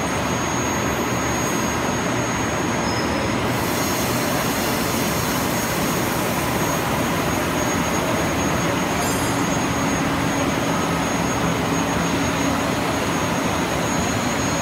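Kung Hsing FLL100 blown-film extrusion line running at production: a loud, even machinery noise of motors, air and rollers with faint steady hum tones. A brighter hiss comes in about three and a half seconds in.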